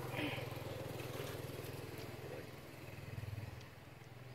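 A vehicle engine running steadily with a low drone, swelling a little about three seconds in and dropping away near the end.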